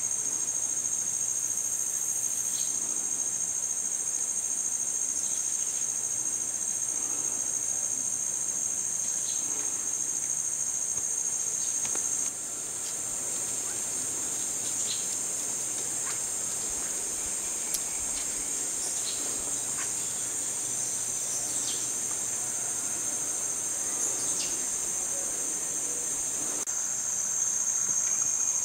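Steady high-pitched insect chorus, a continuous shrill trill, with a few faint short chirps scattered over it.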